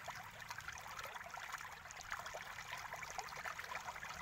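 Faint, steady background noise with a dense patter of small irregular crackles, like a light trickle.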